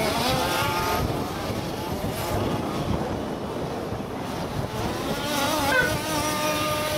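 Large-scale radio-controlled off-road buggies' small two-stroke petrol engines buzzing and revving up and down as they race. The engine whine is louder in the first second and again in the last second or so, with a quieter stretch in between.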